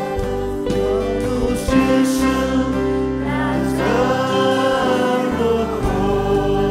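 Live worship music: a man sings a line of a Nepali worship song into a microphone over steady, held instrumental chords.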